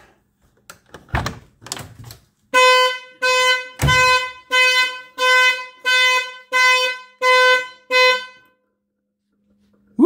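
Two clunks, then the 1972 Corvette Stingray's anti-theft alarm horn sounds in about nine short, evenly spaced blasts under a second apart, pulsed by the alarm's flasher, before it stops. The alarm has been armed and tripped by opening the door, showing that the repaired system works.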